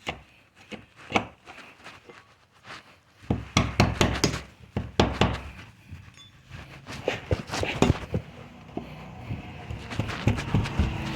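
Irregular clicks, knocks and rattles of a locksmith's tools working a doorknob to bypass the lock, with a busier run of knocks a few seconds in.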